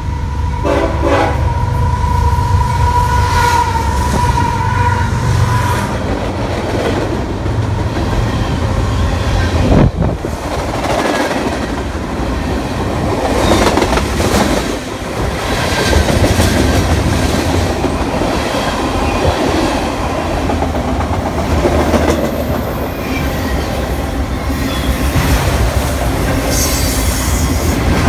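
Canadian Pacific freight train passing: the diesel locomotive's air horn sounds for about the first six seconds over the low running of its engine. The freight cars then roll by with steady wheel clatter and knocking over the rails.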